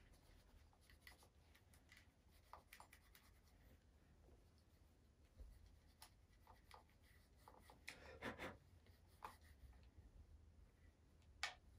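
Faint rubbing of a cloth over a shotgun's receiver, with small scattered clicks and taps as the gun is handled; a slightly louder rustle comes about eight seconds in and a sharp click near the end.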